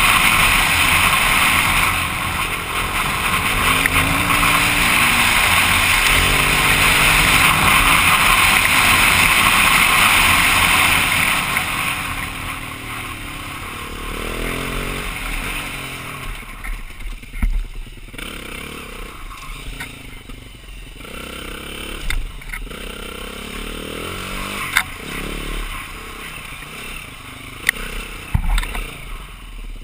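2009 BMW G450X single-cylinder dirt bike engine running as it is ridden. For about the first twelve seconds a loud rush of wind covers it at speed; after that comes slower riding with the engine revving up and down, and a few sharp knocks and clatters.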